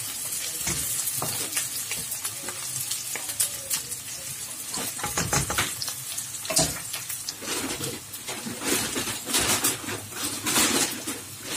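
Onions, ginger, garlic, bay leaves and green chillies sizzling in hot oil in a wok as the aromatics are sautéed, with a wooden spatula scraping and clicking against the pan as they are stirred.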